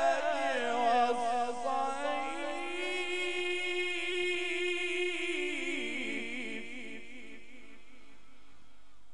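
A man's voice in Quranic recitation (tajwid), drawing out one long melismatic phrase on a wavering, ornamented pitch that fades away about seven seconds in.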